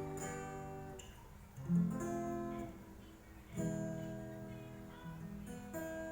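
Acoustic guitar strumming the slow intro of a song: four chords struck about two seconds apart, each left to ring and fade.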